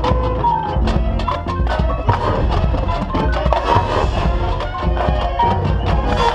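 Marching band playing its field show: sustained brass-type notes over dense, rapid percussion strokes, several a second.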